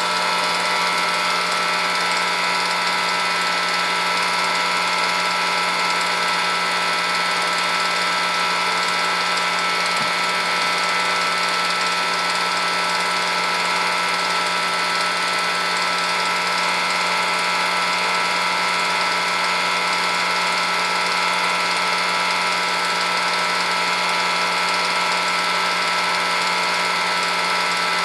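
Film projector running steadily, its claw mechanism and motor giving a constant mechanical whirr and rapid clatter with fixed tones.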